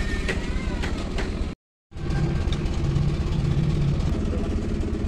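Steady low engine drone with a throbbing pulse, broken by a brief total dropout about a second and a half in.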